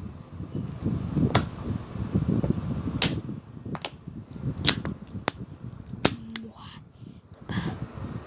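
Crisp lettuce crunching while being chewed: half a dozen sharp crunches a second or so apart over low muffled chewing and handling noise.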